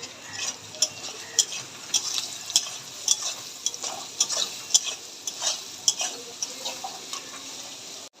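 A spatula stirring and scraping in a pan of frying food, with a steady sizzle under repeated scrapes about twice a second.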